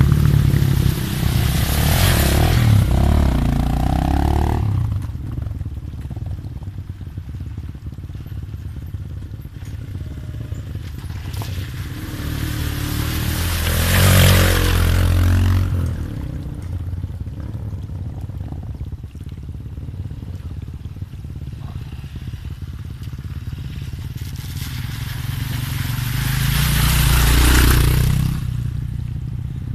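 Dirt bikes passing close one after another, their engines swelling and fading three times: at the start, about halfway and near the end. Water splashes under the wheels at the first pass.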